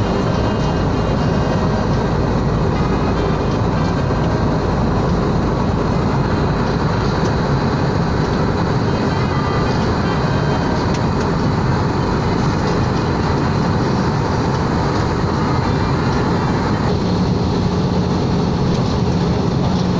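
Steady rush of jet engine and airflow noise inside an airliner cabin in flight, unchanging throughout. A low steady hum grows stronger a few seconds before the end.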